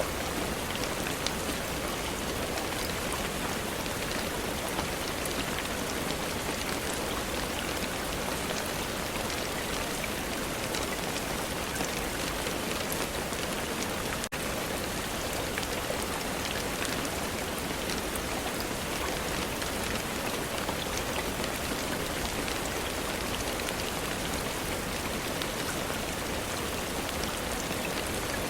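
Steady rain falling: an even hiss flecked with the ticks of single drops, broken for an instant about halfway through.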